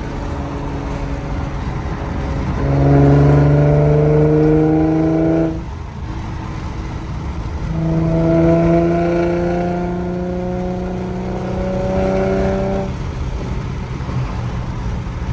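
Infiniti G37's 3.7-litre V6 through a full Motordyne exhaust with art pipes, pulling hard twice under acceleration between steadier cruising. Each pull is a deep exhaust note rising slowly in pitch; the first cuts off suddenly about five and a half seconds in, and the second eases off near the end.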